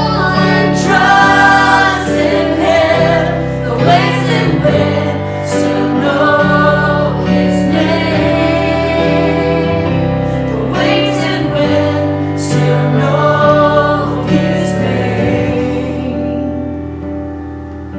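Gospel worship song: voices singing over a backing band with held low notes. The music thins and softens near the end.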